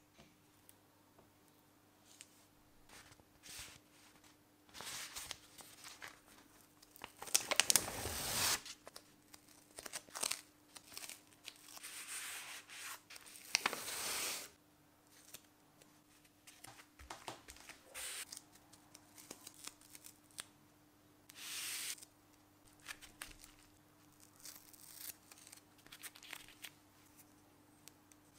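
Foam padding and adhesive tape being handled by hand: irregular bursts of tearing, peeling and crinkling with small clicks between, the longest bursts about a quarter and half way in.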